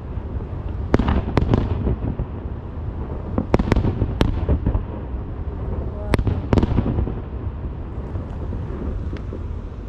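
Fireworks going off: sharp bangs in clusters, about a second in, around three and a half to four seconds in, and around six seconds in, over a continuous low rumble that dies away near the end.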